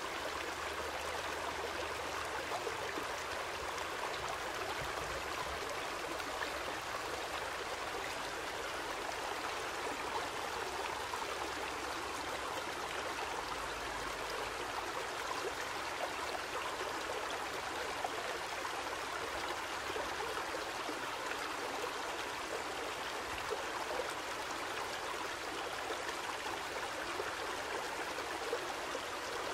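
Steady, even rushing of a stream, with no breaks or changes in level.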